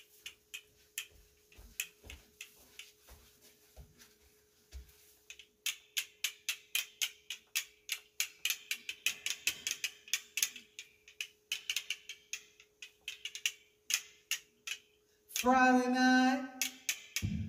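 Castanets clicked by hand: a few scattered clicks at first, then a quick, even run of several clicks a second from about five seconds in. A woman's voice starts singing near the end.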